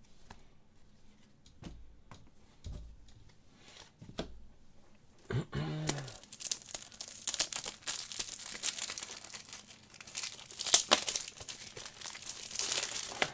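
Trading-card pack wrapper crinkling and being torn open: quiet handling clicks at first, then a dense run of crackling from about halfway through, loudest near the end.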